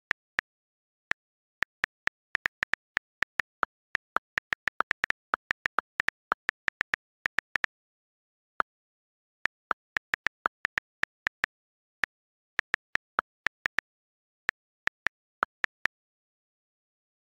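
iPhone on-screen keyboard key clicks as a message is typed: sharp identical ticks in quick, uneven runs, with short pauses about eight seconds in, again around twelve seconds, and near the end, and dead silence between clicks.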